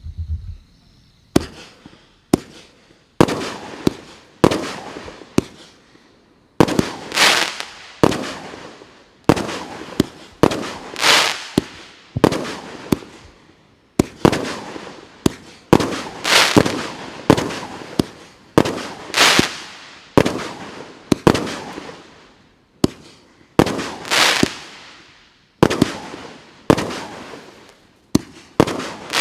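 Samurai fireworks battery (multi-shot cake) firing shot after shot, about one a second, each a sharp bang followed by a fading crackle.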